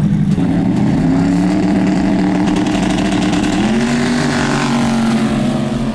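Drag-racing pickup truck's engine held at steady high revs around a burnout, its pitch stepping up about half a second in and again about three and a half seconds in.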